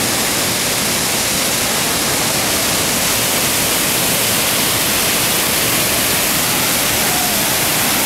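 Düden Waterfall's cascades pouring into the pool below: a loud, steady rushing hiss of falling and churning water.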